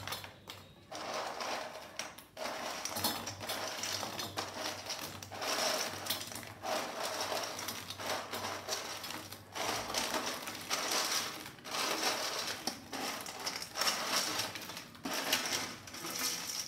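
Crisp-fried plantain pieces tipped from a steel bowl into a steel pan of hot jaggery syrup and stirred with a steel spoon: a run of clattering, rustling bursts with short breaks between them.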